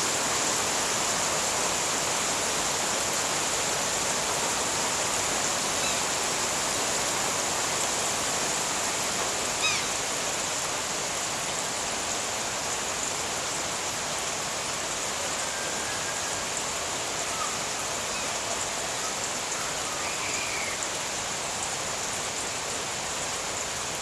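Steady summer rain pouring down over a garden, an even hiss of falling drops on leaves and plants. A few faint high chirps sound now and then.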